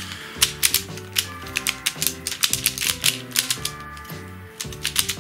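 Quick, irregular plastic clicks and clacks of a pyraminx puzzle's layers and corners being turned by hand, several a second, over background music.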